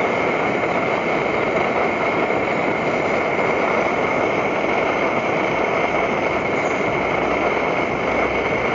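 Primus MFS multi-fuel backpacking stove burning kerosene at full flame, its control valve wide open, giving a steady roar with a thin high whine running through it.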